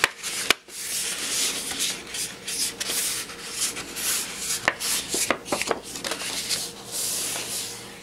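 A sheet of white cardstock being folded in half and rubbed flat by hand: repeated papery swishes of the palm sliding over the card, with a few sharp crackles from the paper, most of them clustered a little past halfway.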